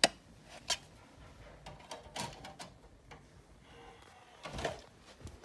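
Plastic DVD case and disc being handled: a sharp click at the start, another click under a second later, then a few fainter clicks and rustles.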